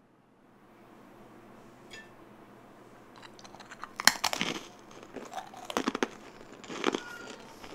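Crisp sugar-coated fried dough twist crunching as it is bitten and chewed: three loud, sharp crunches, the first about four seconds in, after a little faint rustling.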